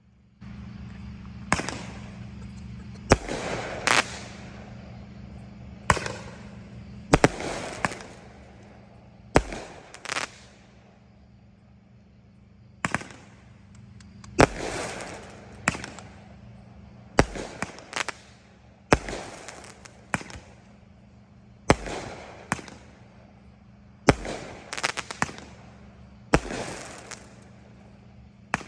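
Consumer fireworks going off in a show: a string of sharp bangs every second or two, each followed by a fading crackle.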